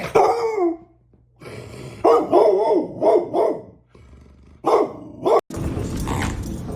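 A dog barking repeatedly in short bursts, a few barks at a time.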